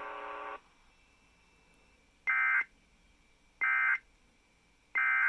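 A steady electronic tone stops about half a second in. Then come three short, identical data-tone bursts, about 1.3 s apart. They are the Emergency Alert System end-of-message (EOM) signal: digital warbling that marks the end of the weather alert.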